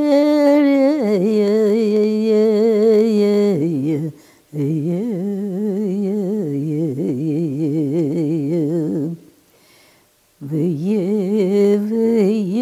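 An elderly woman sings an unaccompanied Sámi song in long, wordless, hummed notes with a wide, wavering vibrato. The first note is held higher and drops about a second in. There are three phrases, with short pauses for breath before about 4.5 s and between about 9 and 10.5 s.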